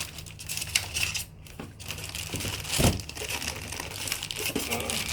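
Packaging being handled, crinkling and rustling continuously with many small crackles, and a dull thump about three seconds in.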